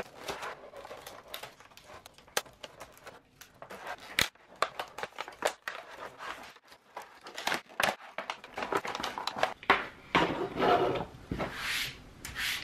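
Clear plastic blister packaging being handled and opened: crinkling and crackling of stiff plastic with scattered clicks and a few sharp knocks, busier and denser near the end.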